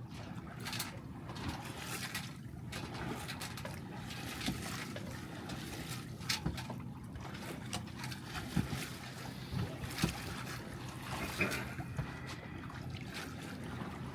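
Water splashing and trickling against the hull of a small sailboat under way, over a steady low rush of wind, with irregular small splashes and knocks.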